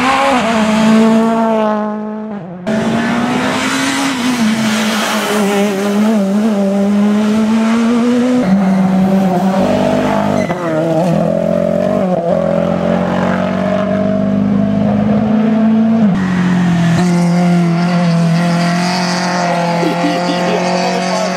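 Rally cars driven flat out on a tarmac special stage, one after another, including a Ford Fiesta WRC. The engines rev hard, their pitch rising and falling through gear changes and braking for bends. The sound changes abruptly a few times as one car gives way to the next.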